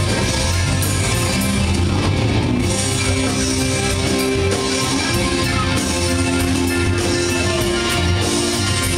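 A live rock band playing loud amplified music, with a drum kit and keyboards holding sustained chords.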